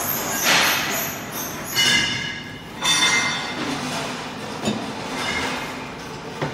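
A heavy cast-steel part is slid and shifted on a steel fixture, with metal scraping and grating, high ringing squeals of metal on metal, and a few clinks and knocks.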